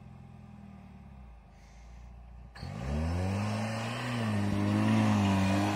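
Jeep Wrangler engine idling low, then about two and a half seconds in revving up sharply and holding high revs as the Jeep drives at a steep slope of loose sand.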